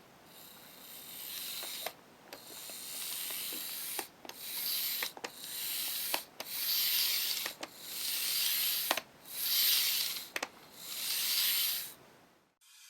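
N-gauge model train motor car running on track: a high whirring, rubbing mechanical sound that swells and fades over and over, about every second or so, with sharp clicks between the swells.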